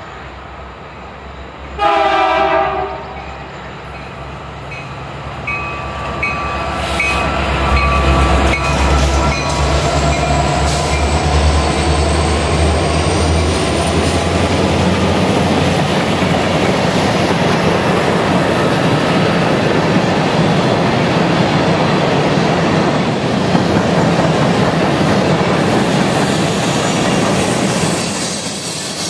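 Canadian National diesel freight train passing: one short horn blast about two seconds in, then the locomotives' low engine rumble builds and gives way to a steady rolling rush and wheel clatter of freight cars going by.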